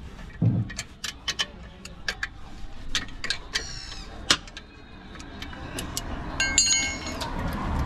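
Hand ratchet clicking and steel tools clinking at uneven intervals as the clutch pressure plate bolts are undone, with a low knock about half a second in. A few short high chirps are heard near the middle and toward the end.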